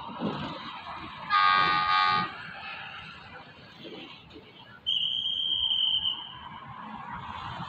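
Alsthom diesel-electric locomotive's horn sounding one short blast of about a second, a chord of several tones, given by the driver as a greeting on approach. A few seconds later comes a single high, steady whistle tone lasting about a second and a half, over the low rumble of the approaching train.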